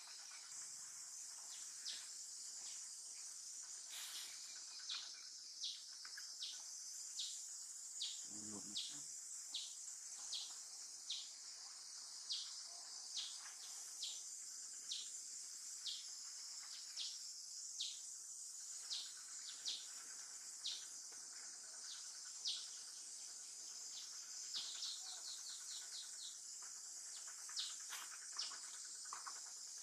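Steady high drone of insects with a short, high chirp repeating about once or twice a second, quickening into a quick run about two-thirds of the way through. A brief low sound comes about eight seconds in.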